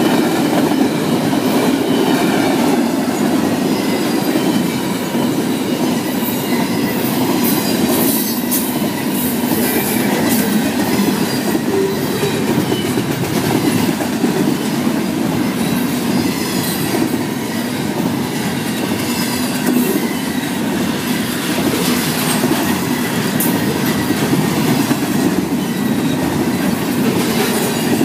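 Double-stack container freight train of articulated well cars rolling past: a loud, steady rumble of wheels on rail with clickety-clack over the rail joints and a high wheel squeal at times.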